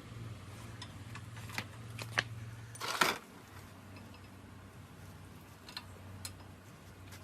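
Scattered sharp metallic clicks and knocks of hand work on metal parts, with a louder cluster about three seconds in, over a low steady hum that drops away after it.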